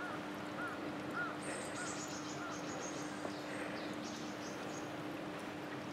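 A crow calling: a run of about six short caws about half a second apart, fading out after two and a half seconds. High chirping runs over the middle of the stretch, with a steady low hum underneath.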